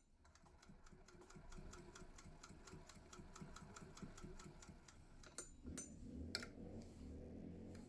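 Singer 201K hand-crank sewing machine stitching, with a quick, even clicking from the mechanism as the crank turns. In the last few seconds there are a few sharper clicks and then a lower, denser running sound.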